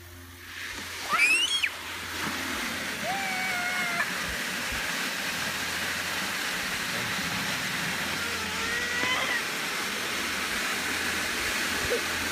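Water from a lawn sprinkler spraying into an upturned plastic bucket held over it: a steady hissing rush that starts about half a second in. A child squeals with rising pitch about a second in and calls out briefly twice more over the rush.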